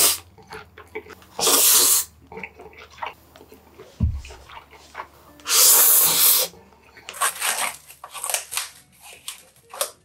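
A man slurping yakisoba noodles loudly, three long slurps, with smaller wet chewing and smacking sounds between them and a quick run of them near the end.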